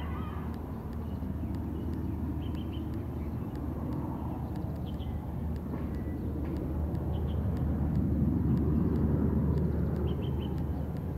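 Steady low outdoor rumble, like distant traffic, that swells for a few seconds toward the end. Faint short high chirps come in small clusters about every two and a half seconds.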